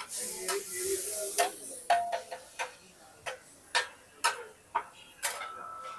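Steel spatula striking and scraping a flat iron street-food griddle in a regular series of sharp clinks, about two a second. The clinks follow a brief hiss at the start.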